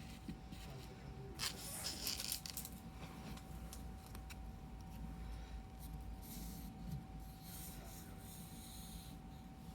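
Soft rustling, rubbing and scraping as Pokémon trading card packs and cards are handled, in a few short bursts around two seconds in and again from about six to nine seconds. A faint steady whine runs underneath.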